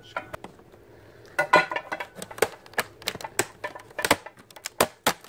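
Irregular sharp plastic clicks and taps from a laptop being handled, flipped over and worked at with a screwdriver around the keyboard, starting about a second and a half in.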